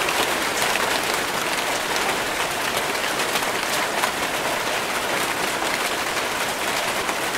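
Steady rainfall: an even hiss of rain with many small drop hits ticking through it.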